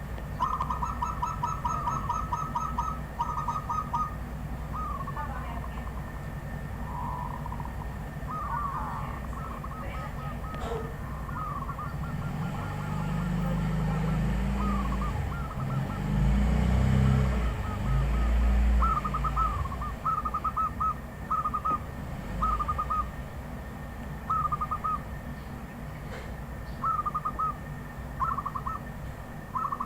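Zebra doves cooing: repeated short runs of quick, evenly spaced notes, heard again and again. A low rumble comes in around the middle for several seconds.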